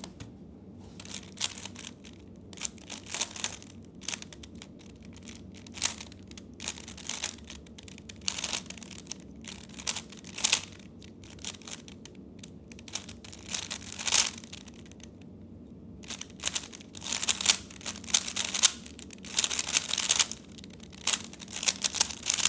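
3x3 Rubik's speedcube turned fast by hand: runs of plastic clicking and clacking broken by short pauses while solving the first two layers, then a dense run of rapid turns for the quick last layer in the final few seconds.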